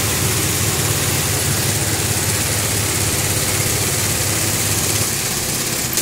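Several belt-driven embroidery sewing machines running together: a steady mechanical hum and whirr, its low hum easing slightly about five seconds in.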